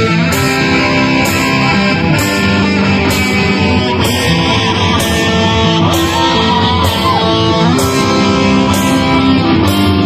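Live rock band playing loud: distorted electric guitars over bass and drums, with a cymbal struck about every two-thirds of a second.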